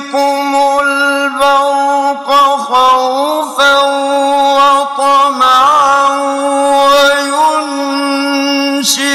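A man's voice chanting Quran recitation in a slow, melodic style, holding long notes with ornamented turns in pitch.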